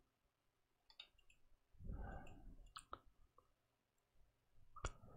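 Near silence with a few faint computer mouse clicks as a web page is scrolled: one about a second in, a couple near three seconds and a slightly louder one near the end, with a soft rustle about two seconds in.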